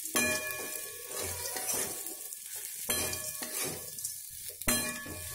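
Vegetables frying and sizzling in oil in a steel kadai while being stirred with a metal spatula. The spatula scrapes and knocks against the pan a few times.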